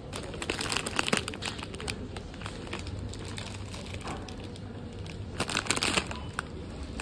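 Plastic candy bag crinkling as it is handled, in two spells: around the first second and again near six seconds in.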